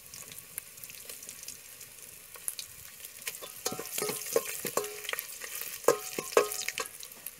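Crushed garlic and dried red chillies sizzling in hot oil with mustard seeds, stirred in a metal pot with a metal ladle. The ladle scrapes and clinks against the pot, with several ringing clinks in the second half.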